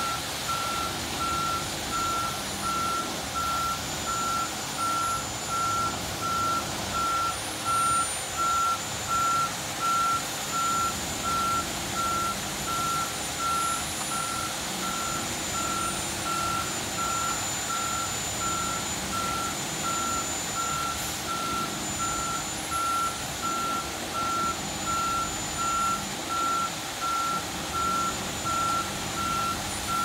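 Reversing alarm on a concrete mixer truck beeping steadily at a single pitch, a little over one beep a second, over the truck's continuous running noise as it pours.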